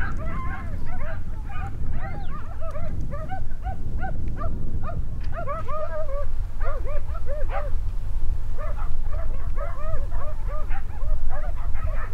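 A pack of running hounds baying, many short overlapping cries one after another without a break: the cry of the pack on a wild boar's trail. A steady low rumble runs underneath.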